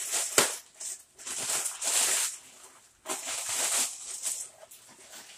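Plastic packaging crinkling and rustling in irregular bursts as a wrapped parcel is handled and pulled at, with a sharp click about half a second in.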